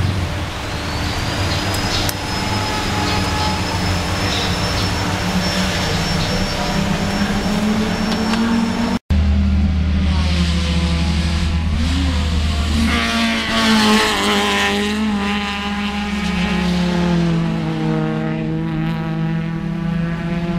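Ferrari F430 GT3's V8 idling steadily. After a cut about nine seconds in, race car engines run on the circuit, their pitch rising and falling.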